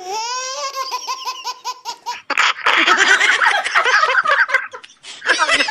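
A baby laughing in quick repeated high-pitched giggles. A little over two seconds in, it gives way to two adults laughing together, louder and fuller.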